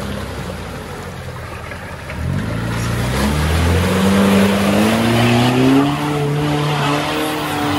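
Mitsubishi 4M40 2.8-litre turbo diesel with a straight-piped 2.5-inch mild-steel exhaust and no mufflers, labouring low for about two seconds, then revving up steadily under load and holding high revs as the Pajero ploughs through deep mud. Tyres churn and spray mud and water through the middle of it.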